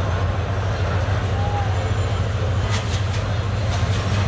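Bangladesh Railway diesel locomotive 2909 approaching, its engine a steady low drone over city noise. From about two-thirds of the way in, a run of short high clicks begins as the train draws nearer.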